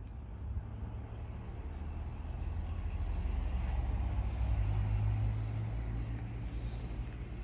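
Low rumble of a passing engine, swelling to its loudest about five seconds in and then fading away.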